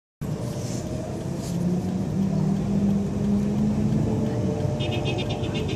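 Engine and road noise inside a moving car, with a steady low drone. Near the end comes a brief rapid high-pitched trill.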